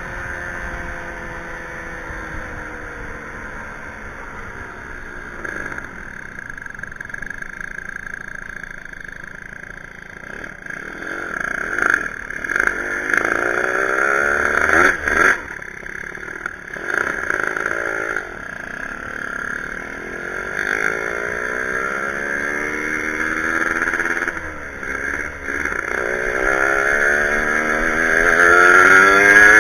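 Two-stroke motorcycle engine under way, its pitch climbing and dropping several times as it is revved, loudest near the end.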